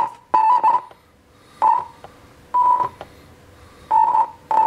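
Zeppelin Design Labs Macchiato mini synth playing about six short, beep-like notes of nearly the same pitch as its keyboard pads are tapped. Each note cuts off abruptly, with the release knob turned all the way down.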